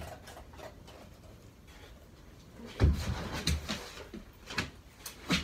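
Dull thumps and scuffing on a plywood platform as a dog gets up and shifts about on it, with a few sharp clicks, like claws on the wood, near the end.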